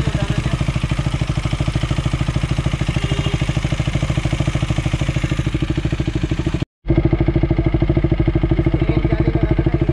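KTM Duke single-cylinder engine idling steadily through an aftermarket exhaust, a rapid even pulse with no revving. The sound drops out for a split second about two-thirds of the way through, then picks up again slightly louder.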